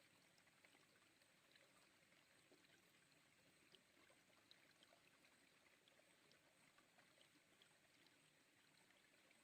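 Near silence: the faint, even hiss of a small river flowing, with scattered tiny clicks.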